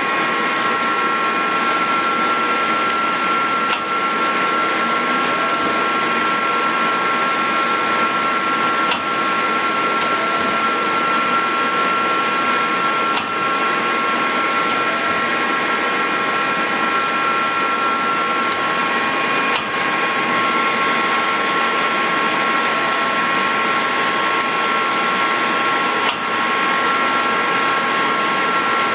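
Mori Seiki NL1500 CNC lathe running with a steady mechanical hum and a constant two-note whine, with a sharp click every few seconds.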